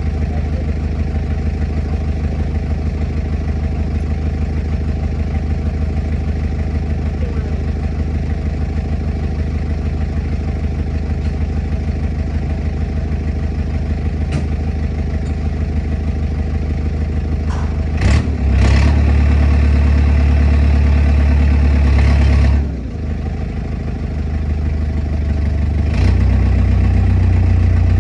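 Backhoe's diesel engine idling steadily, then revving up about two-thirds of the way through, easing back briefly and picking up again near the end.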